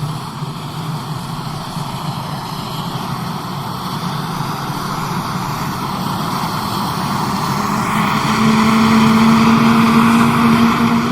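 Small gas engine of a 26 cc radio-control Cessna Bird Dog model plane running with its propeller, a steady drone that grows louder about eight seconds in.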